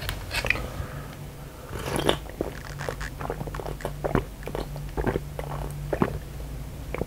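Close-miked drinking of sujeonggwa (Korean cinnamon punch) from a plastic cup: a run of small wet sips, mouth clicks and swallows that starts about two seconds in and stops near the end.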